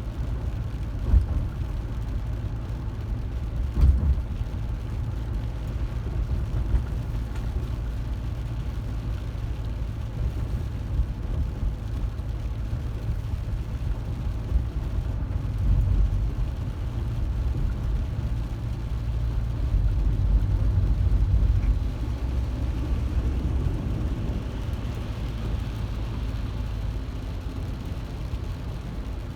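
Car on the move: a steady low rumble of engine and road noise, with a few short bumps and a swell in level a little after the middle.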